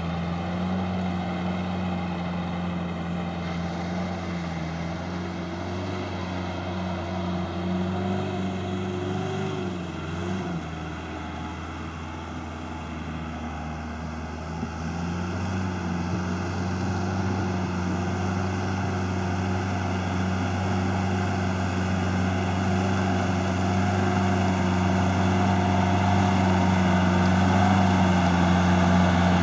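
Compact farm tractor's diesel engine running steadily under load while tilling wet paddy soil, growing louder as it comes closer. Its note dips briefly about ten seconds in.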